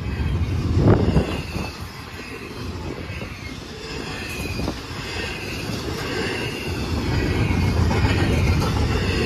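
A train's cars rolling past on the rails with a steady low rumble, faint short high squeals and a loud clunk about a second in.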